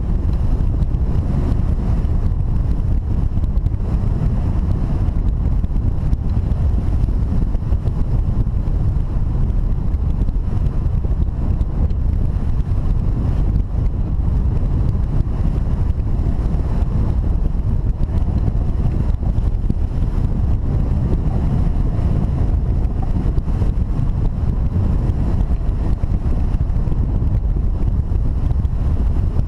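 Steady, loud low rumble of wind buffeting the microphone of a camera mounted on a hang glider in flight, from the airflow of its gliding speed.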